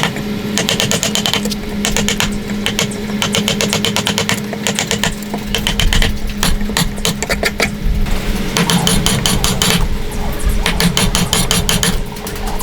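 Rapid, evenly repeated strokes of a woodworking tool working wood, over a steady low hum, with background music.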